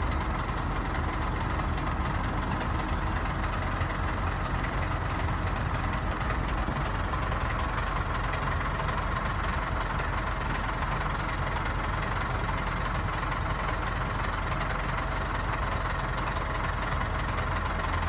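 JAC A5 truck's Yuchai YC4EG200 four-cylinder turbodiesel idling steadily.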